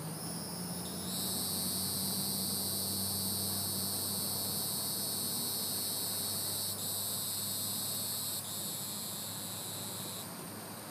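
Evening insect chorus: a steady high-pitched buzzing that dips briefly twice and stops about ten seconds in, over a faint low steady hum.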